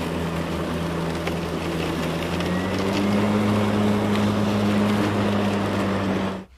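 Ryobi 40V HP Whisper Series cordless mower's brushless motor and 21-inch blade running with a steady hum. About two and a half seconds in, the pitch steps up and it gets a little louder as the motor speeds up in thick grass. The sound cuts off abruptly near the end.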